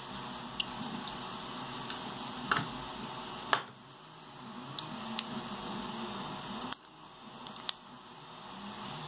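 Scattered light clicks and taps of plastic parts and a metal screw being handled and worked with a screwdriver, over a steady background hiss.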